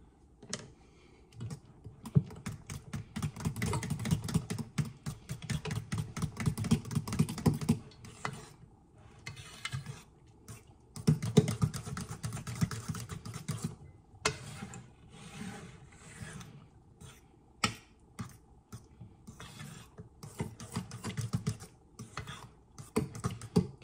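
Spatula stirring a thick peanut butter and banana batter in a mixing bowl: rapid clicking and scraping in several bursts with short pauses between them.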